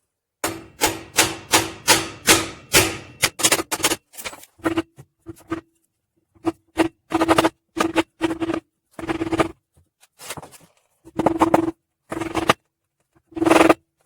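Hammer blows struck through a block of wood onto the pistons of a seized Mopar 318 V8, driving them down to free the stuck engine. About seven quick blows in the first three seconds, then irregular, more spaced strikes, many leaving a short metallic ringing note.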